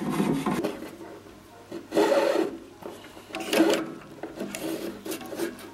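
Metal parts of a DIY plastic extrusion machine being handled and fitted together: a steel nozzle is screwed onto the threaded barrel and a brass band heater is handled, making scraping, rubbing sounds in several short bursts.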